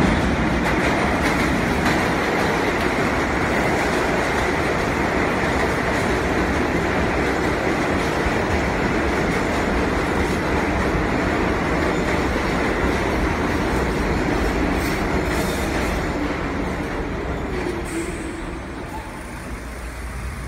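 New York City subway train pulling into an underground station: a steady loud rumble and clatter of wheels on rail that grows quieter over the last few seconds as the train slows to a stop.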